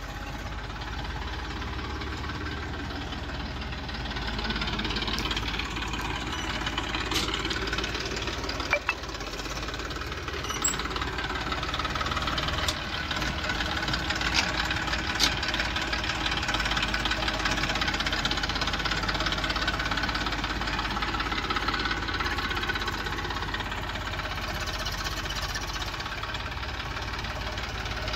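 Eicher 333 tractor's three-cylinder diesel engine running steadily, getting a little louder about four seconds in, with a few brief sharp clicks over it.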